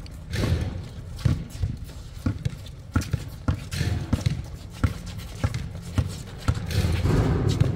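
Basketball being dribbled on a hard outdoor court: irregular bounces with players' footsteps, and a louder stretch of noise near the end.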